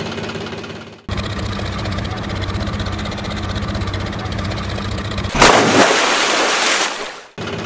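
Heavy engine idling with a fast, steady knock, starting abruptly about a second in. About 5.4 seconds in it gives way to a loud rushing noise lasting about two seconds, which cuts off sharply.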